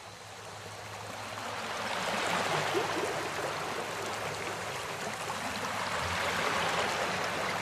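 Stream water running: a steady rushing and gurgling that swells in over the first two seconds, with a faint low hum underneath.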